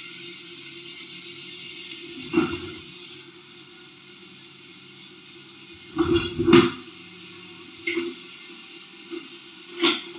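Food sizzling steadily in butter in a nonstick frying pan on a gas stove, with a few short clattering knocks of cookware: one about two seconds in, two close together around six seconds, and one near the end.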